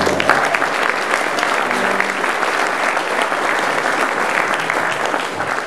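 Audience applause, many hands clapping at once in a steady dense patter, as a song ends.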